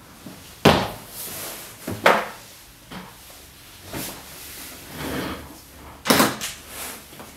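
A run of sharp knocks and softer handling thuds: a man settling at a wooden desk and handling a briefcase on it. The loudest knocks come about a second in and again in a quick cluster about six seconds in.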